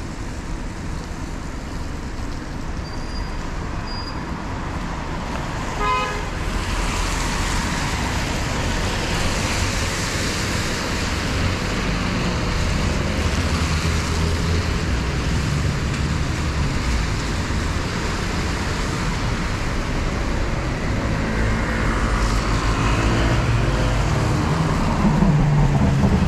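Road traffic on wet tarmac: tyres hissing on the wet road and the low rumble of double-decker bus and car engines. A brief horn toot sounds about six seconds in, and near the end a car engine revs up as it passes close.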